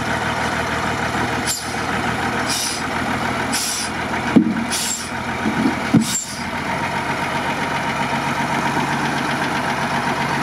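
Mercedes-Benz Unimog engine running steadily as the truck creeps over concrete slabs in low speed. Several short hisses come in the first six seconds, and a few dull knocks come around four to six seconds in.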